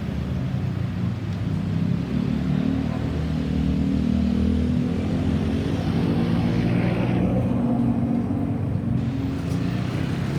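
Road vehicle engines running close by in a steady low drone, slightly louder from about two seconds in, with no siren sounding.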